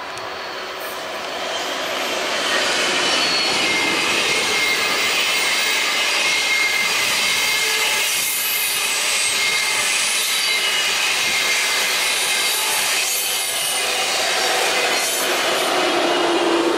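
ICE high-speed train running past on curved track, its wheels squealing against the rails over the running noise. The sound grows over the first couple of seconds, then holds steady.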